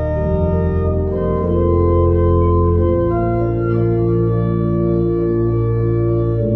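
Church organ playing a Motown medley: sustained chords over held bass notes, the bass moving to a new note twice.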